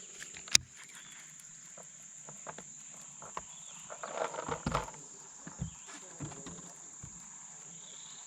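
Steady high-pitched droning of insects. Scattered clicks and knocks sound over it, the loudest a sharp click about half a second in, with a short jumble of handling noise around four to five seconds in.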